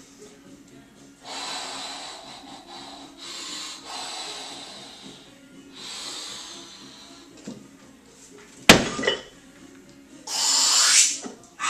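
A weightlifter breathing in hard several times while set over a loaded barbell. About nine seconds in, one sharp loud clank as the barbell is cleaned onto the shoulders, then a loud forceful breath as he rises out of the squat.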